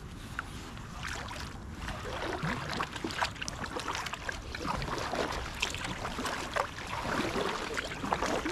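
Kayak paddle strokes on calm water: the paddle blades dip in and pull through on alternate sides, splashing and dripping with each stroke.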